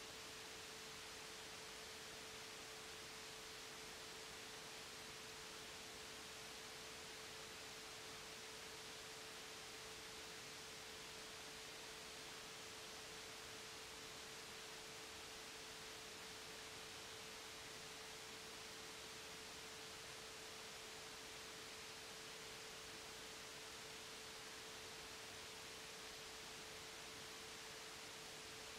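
Faint steady hiss with one constant, unchanging tone under it: electrical noise and hum in the recording, with no playing or other sound.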